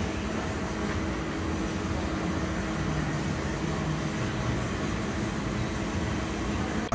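Steady workshop hum and hiss of machinery running, with a few faint steady tones and no distinct strikes or events.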